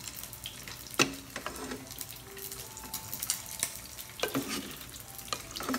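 A plastic spoon knocking and scraping against a stainless steel pot while cooked squash chunks are scooped out of the hot broth, over a steady sizzling hiss from the pot. The clicks are irregular; the sharpest knock comes about a second in.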